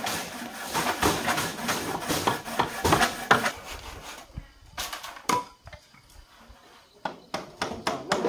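Hand saw cutting through a wooden pole with rapid strokes for about four seconds, then scattered knocks and clatter of wooden poles and corrugated metal roofing sheets being handled.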